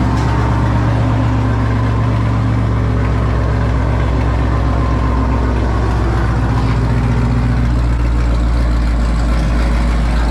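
Sixth-generation Chevrolet Camaro 1LE with full bolt-ons and an E85 tune, idling steadily just after a cold start. The low rumble grows a little stronger about three-quarters of the way through.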